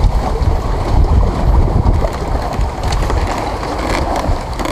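Wind buffeting the microphone in an uneven low rumble, over seawater sloshing around the bamboo poles of the platform.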